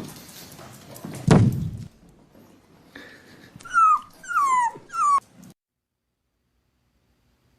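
A loud thump about a second in, then a dog whimpering three times in short squeals that fall in pitch.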